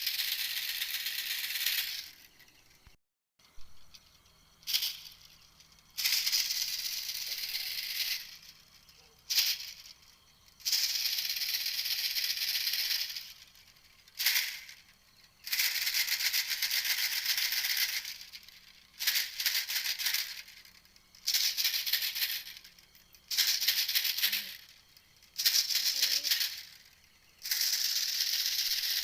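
Recorded call of the bird known in Thai as 'ติวเม็ดแตง', played as a hunting lure: a dry, buzzy rattle repeated again and again, each burst lasting one to three seconds with short pauses between.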